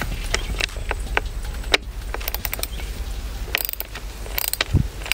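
Clicks and scrapes of hands working a plastic pipe fitting on black poly irrigation pipe: scattered sharp clicks, then a few short rough scrapes in the second half.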